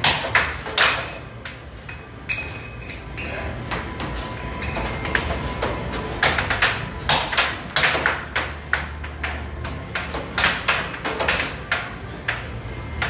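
Air hockey puck clacking sharply against the plastic mallets and the table's rails in quick runs of hits, over a steady low hum.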